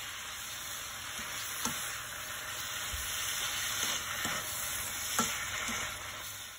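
Mixed vegetables sizzling as they are stir-fried in a hot pan and turned with a slotted spatula, with a couple of sharper taps of the spatula against the pan.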